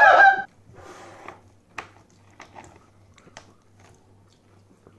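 Laughter that breaks off about half a second in, followed by quiet chewing of a snack with a few soft crunches and clicks.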